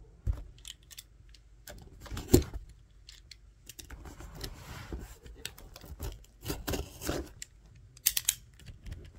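A blade cutting through packing tape on a mail package and the package being pulled open: irregular scrapes, clicks and rustles of cardboard and wrapping. There is one sharp knock a couple of seconds in and a short high rip near the end.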